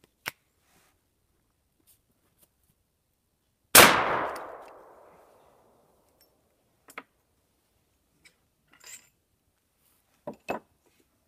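A single .44 Magnum shot from a Chiappa M6 survival rifle, fired through a caliber adapter sleeve in its 12-gauge barrel, with a tail fading over about a second and a half. A few light metallic clicks follow near the end as the break-action is opened.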